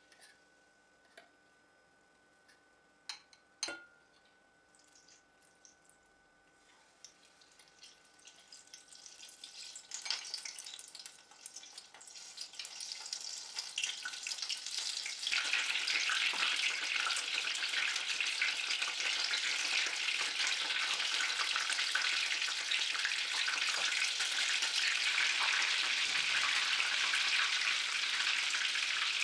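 Battered shrimp dropped into hot oil in a stainless steel saucepan, after a few light clinks at first. The sizzle starts quietly, builds in steps as more pieces go in, and settles into a loud, steady deep-fry sizzle for the second half.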